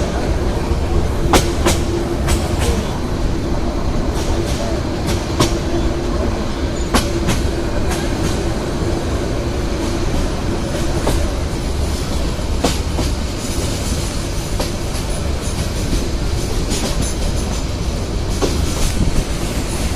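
Train running slowly on its track: a steady low rumble with irregular clicks and clacks from the wheels and carriages, and a steady hum that fades out about a third of the way in.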